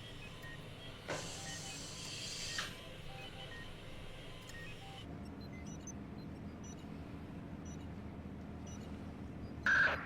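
Steady low electronic hum with faint, scattered short beeps, and a swell of hiss between about one and two and a half seconds in.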